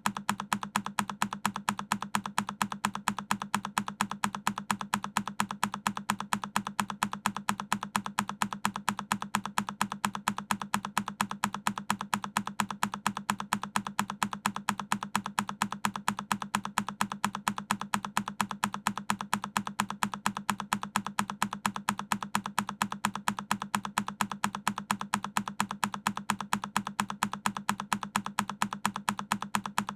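A single key on a Keychron K10 mechanical keyboard pressed over and over, each press a sharp click, evenly spaced at several a second.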